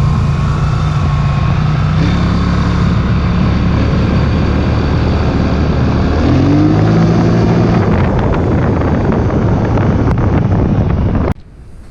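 Polaris Sportsman 850 High Lifter ATV engine running on a test ride, its pitch sagging and then climbing as it picks up speed again, with wind rush over it and no brake rattle. The sound cuts off suddenly near the end.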